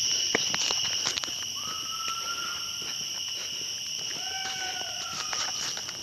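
Steady high-pitched insect chorus from the woods, a shrill drone holding two pitches. A few sharp clicks in the first second or so, and two long drawn-out calls about two and four and a half seconds in.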